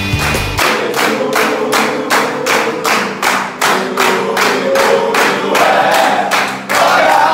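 A group of men clapping in unison at a steady beat of about three claps a second, joined from about five seconds in by voices singing or chanting together. A music track cuts off in the first second.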